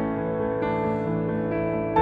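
Soft instrumental background music: held notes, with a new chord coming in about two-thirds of a second in.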